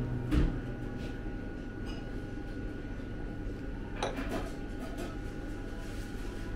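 Porcelain coffee cup set back down on its saucer with a short clink about four seconds in, after a brief knock just after the start, over a steady room hum.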